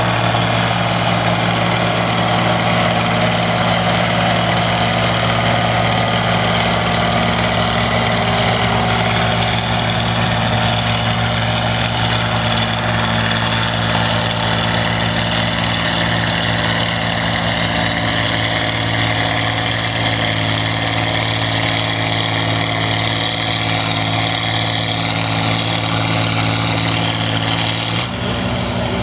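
Oliver 88 tractor's six-cylinder engine running hard under heavy load as it drags a weight-transfer pulling sled, a loud steady engine note throughout.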